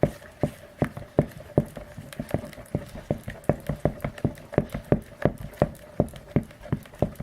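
Glue-based slime mixture being stirred briskly in a bowl, a short tap about three times a second. The boric-acid contact solution just added is starting to set the glue, and the mixture is thickening into slime.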